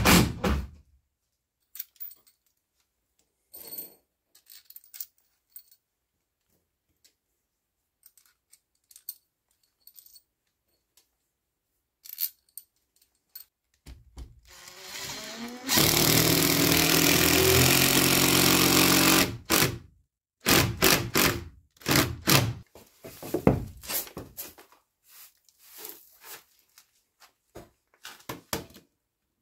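Cordless drill driving a screw through a wooden board into a log wall. The motor winds up about fourteen seconds in, runs loud and steady under load for about three and a half seconds, then stops. Scattered knocks and clicks of handling come before and after.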